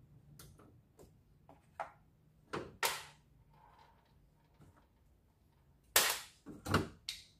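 Short, sharp clicks and clacks of plastic parts and hand tools being handled on a washing machine's opened top panel, a few scattered over the first three seconds, loudest near three seconds in, then a quick cluster around six to seven seconds in.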